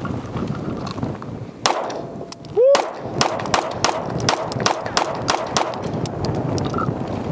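Atlas Gunworks Erebus compensated 2011 9mm pistol firing a string of about ten shots of 124-grain ammunition. Two shots come about a second apart, then the rest follow in a quick string, with wind rumbling on the microphone.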